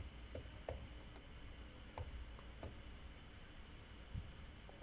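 Faint, irregular clicks of a computer keyboard and mouse as captcha digits are typed and submitted, about seven clicks spread unevenly over the few seconds.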